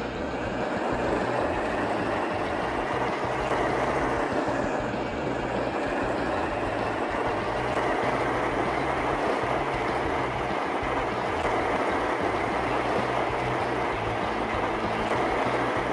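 A motor running steadily under a constant rushing noise.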